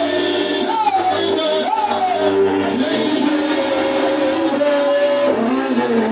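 Loud live music with singing: a voice holding and bending melody lines over a steady instrumental backing.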